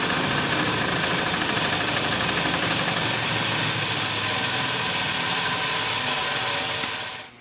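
Bench grinder fitted with a wire wheel running free with no load, a steady hum with strong hiss, cutting off abruptly near the end.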